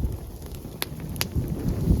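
Open wood campfire crackling, with two sharp pops a little under a second in and just after, over a low gusting rumble of wind on the microphone.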